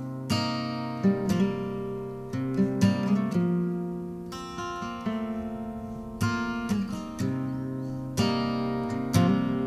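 Intro music on acoustic guitar: slow plucked and strummed chords, struck every second or two, each ringing out and fading before the next.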